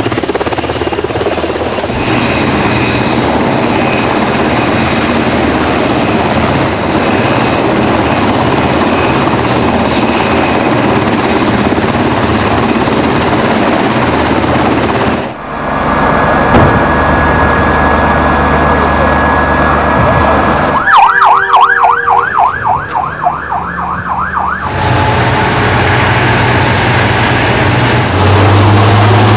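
A Black Hawk helicopter's rotors and turbines running steadily for about fifteen seconds. After a cut comes a steady high tone over a low rumble, then an ambulance siren yelping rapidly up and down for about four seconds. Near the end a Merkava tank's engine and tracks are running heavily.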